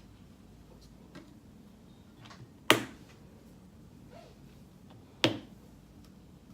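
Two sharp knocks about two and a half seconds apart, as paint cups are handled and set down on the work table, with faint small clicks between.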